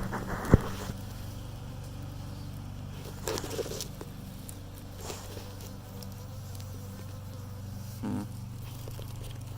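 Honeybees buzzing around an open hive in a steady hum, with a sharp knock about half a second in and a few brief handling rustles later.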